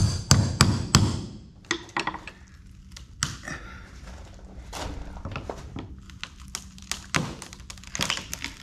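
A claw hammer striking a steel pry bar about four times in quick succession, driving it into the seam of a rotten wooden hull plank. Then cracking and scraping as the bar levers and splits the plank, with more knocks every second or two.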